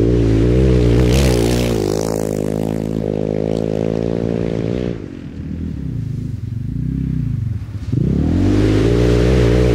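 1992 Honda Africa Twin's carbureted V-twin engine revving hard under acceleration on loose dirt, with a hiss of dirt spraying from the rear tyre. About five seconds in the throttle closes and the revs fall and waver, then about eight seconds in the engine is opened up again and climbs.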